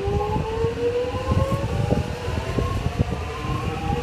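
Metro X'Trapolis 100 electric suburban train accelerating along the platform: its traction motors whine in several tones that climb steadily in pitch, over a rumble of the train with scattered knocks from the wheels on the track.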